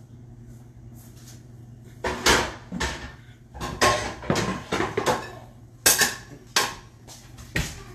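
Metal pots and pans clanking together as someone rummages through cookware: quiet for about two seconds, then a string of sharp knocks and clatters.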